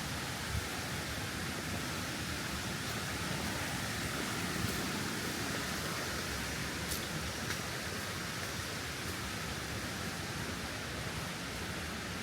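Steady rushing of flowing stream water, an even hiss with no change, with a few faint ticks over it.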